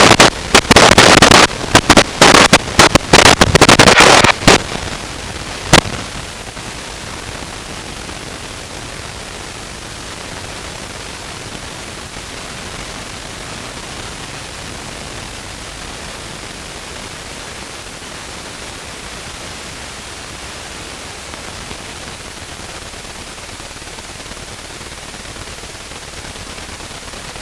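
Loud crackling radio static in bursts for the first few seconds, one more sharp crack a moment later, then a steady hiss: interference that the pilot puts down to the rain.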